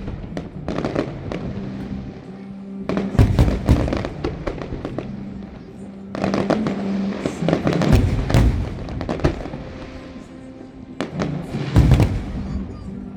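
Aerial fireworks bursting in volleys of bangs and crackles, with barrages about three seconds in, through the middle, and again near the end. Music plays underneath.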